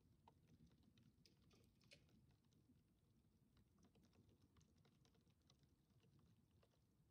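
Near silence: a faint low background rumble with scattered faint irregular ticks.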